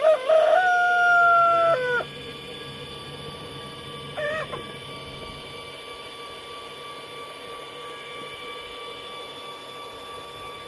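A rooster crowing once: a few short notes, then a long held note that drops away at the end. A brief, weaker call follows about four seconds in.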